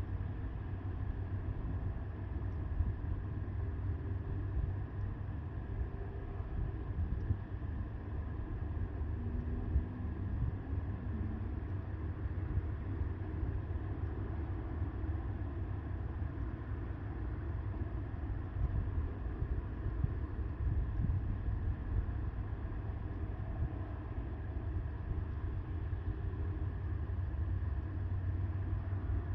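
Wind buffeting the microphone: a steady low rumble that holds at an even level throughout.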